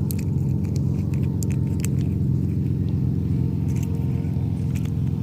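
A steady low motor hum, like an engine running, with scattered light clicks and ticks over it.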